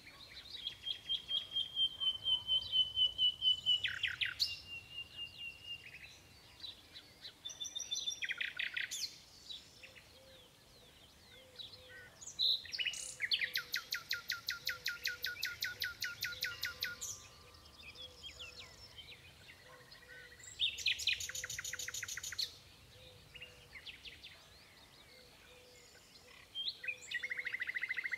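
Common nightingale singing in separate phrases a few seconds long with short pauses between: first a run of slow, clear repeated whistles, later fast trills of rapidly repeated notes.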